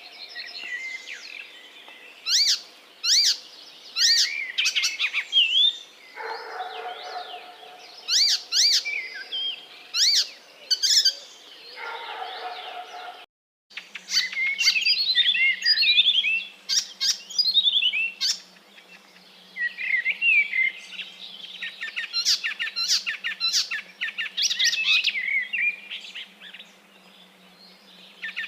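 Pet parrots, cockatiels and conures, chirping and calling in a busy string of sharp, high calls, with a brief gap about thirteen seconds in.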